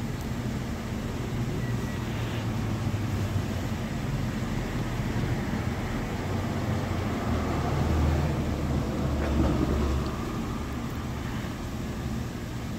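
Steady low rumble of vehicle engines and traffic, swelling for a few seconds past the middle.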